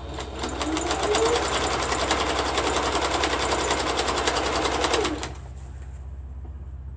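Sewing machine stitching through a quilt in a fast, even rhythm. It speeds up over the first second, runs steadily, then slows and stops about five seconds in.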